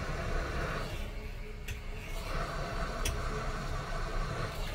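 Hot air rework gun blowing steadily, its hiss dropping away for about a second near the start and then coming back. Two light ticks, about a second and a half apart.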